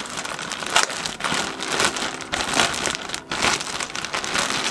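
Clear plastic bag crinkling and rustling as it is handled and pulled open around a folded garment, with quick irregular crackles.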